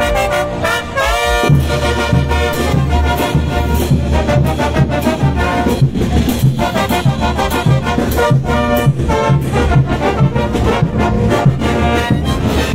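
Brass band playing: trumpets and trombones over a steady low drum beat, with a rising brass run about a second in.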